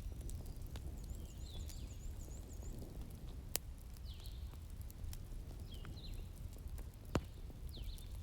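Wood fire in a fireplace crackling, with scattered small clicks and two sharp pops about three and a half seconds apart, over a steady low rumble. Faint short high chirps recur every second or two.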